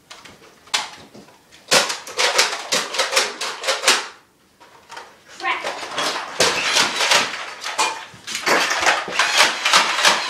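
Belt-fed Nerf foam-dart blaster firing in rapid succession: a fast clatter of plastic clacks in two long runs, with a short pause about four seconds in.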